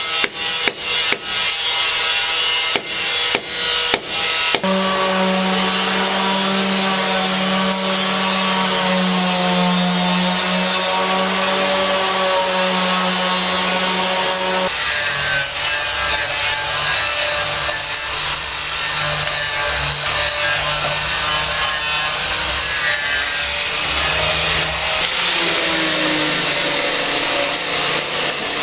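Rapid hammer blows for the first few seconds, then a power tool running steadily on wood, cutting or sanding. About halfway through, its pitch and tone change.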